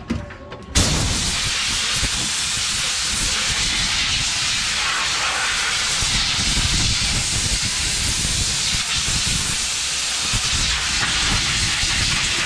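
Compressed-air blow gun hissing steadily as it blows chips off a freshly machined 6061 aluminium flange. The blast starts suddenly about a second in.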